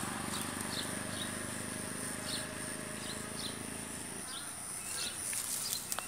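Small birds chirping in short, repeated high notes over a steady high insect drone, with a couple of sharp clicks near the end.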